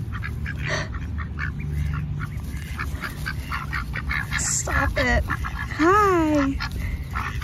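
Ducks quacking a few times, the loudest quack about six seconds in and falling in pitch, over a steady low rumble and many small clicks.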